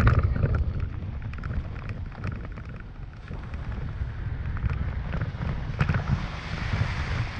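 Toyota Tacoma pickup driving slowly over a rutted dirt trail: a steady low rumble of engine and tyres, with scattered clicks and knocks from gravel and the body jolting over bumps, one loud knock at the very start. Near the end a hiss rises as the tyres run into a muddy puddle.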